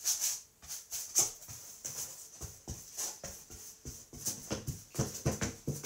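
Paintbrush scrubbing green paint onto a collaged painting in quick repeated strokes, with some short low sounds mixed in near the end.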